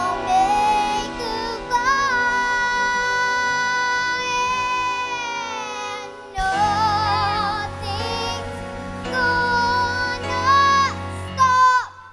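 A young girl singing a ballad solo over band accompaniment. She holds one long note for about four seconds, letting it waver at the end, then sings shorter phrases with quick runs.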